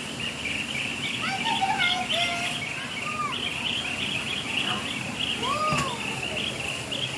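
Many birds calling at once: a constant high chatter of chirps, with a few clear whistled calls that slide up and down. The calls are loudest about two seconds in and again near six seconds.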